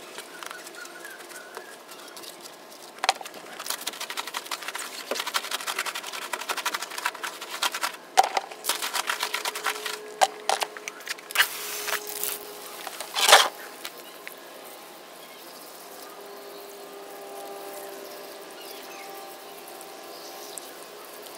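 Scrubbing a soapy alloy wheel with a wash mitt and a wheel brush: fast, uneven rubbing and scraping strokes, with a few sharp knocks of the brush against the wheel about two-thirds of the way in. Then a softer, steady hiss of water from a garden hose rinsing the wheel.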